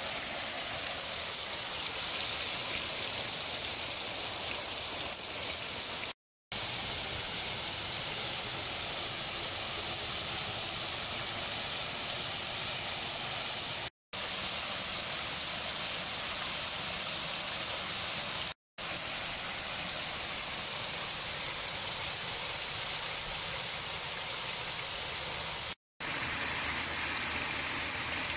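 Muddy floodwater pouring over low rock ledges in a small flash-flood waterfall: a steady, bright rushing and splashing. It cuts to silence for a moment four times.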